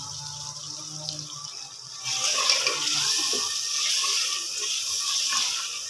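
Tomato-and-onion masala sizzling loudly in an aluminium handi as it fries, starting about two seconds in, with small clicks of a steel ladle stirring it.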